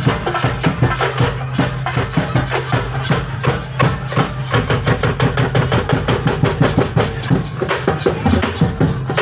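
Percussion-driven festival dance music: fast, steady drum and wooden knocking beats over a steady low tone.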